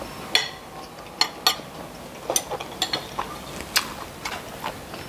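Metal spoon and fork clinking and scraping against a ceramic plate: one sharp ringing clink about a third of a second in, then a string of lighter irregular clicks.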